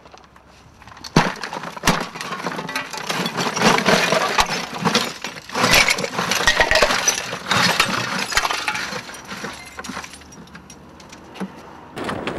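A pile of rubbish (broken brick, glass and plastic) clattering and crunching as it is shifted and tipped: a dense run of knocks and clinks, starting with two sharp knocks about a second apart and dying down shortly before the end.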